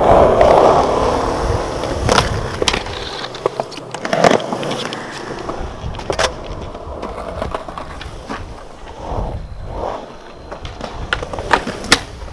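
Skateboard wheels rolling over smooth concrete with a steady rumble, broken by a series of sharp clacks and knocks from boards popping, wheels hitting joints and landings.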